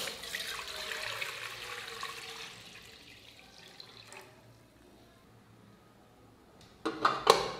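Water poured into an aluminium pot, splashing loudly at first and fading away over about three seconds. About seven seconds in come a few sharp, loud knocks.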